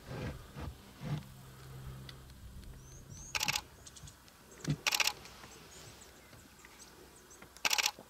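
Three short bursts of rapid camera shutter clicks, a second or two apart, with the last about two seconds after the second. A few low knocks and a low steady hum come in the first three seconds.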